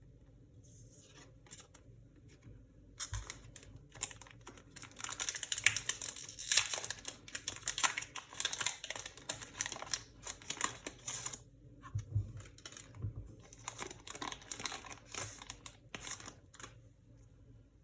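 Crinkly wrapper of a Pokémon card booster pack being torn open and crumpled by hand: a dense crackle for several seconds, easing into scattered crinkles and clicks near the end.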